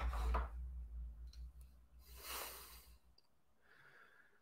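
A man sighing heavily into a close microphone, the breath buffeting it with a low rumble, then a second long exhale about two seconds in.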